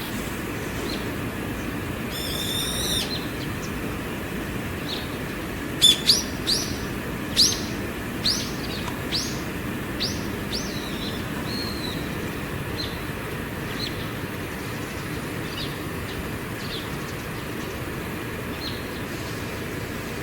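Wild bird calling: a quick high trill about two seconds in, then a series of loud, sharp, downward-slurred high calls from about six seconds, coming more slowly and fading, with faint scattered notes after. A steady low rumble runs underneath.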